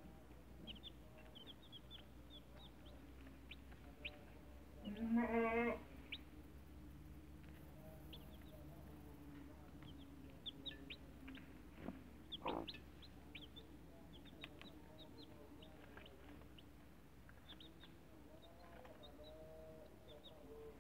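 Baby chicks peeping: many short, high peeps throughout. About five seconds in, the mother hen gives one louder, wavering call lasting under a second.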